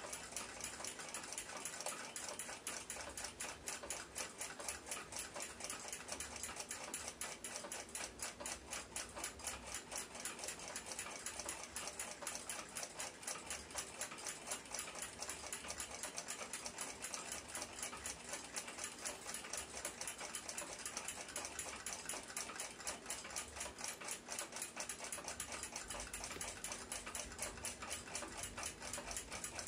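A mechanical clock ticking steadily and rapidly, several ticks a second.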